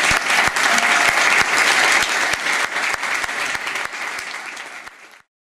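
Audience applauding, many hands clapping at once; it fades in the last second or so and cuts off just before the end.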